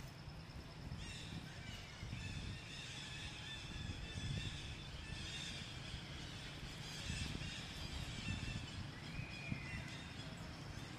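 Outdoor ambience with high-pitched animal calls: several overlapping calls from about a second in, and one rising call near the end, over a low rumble.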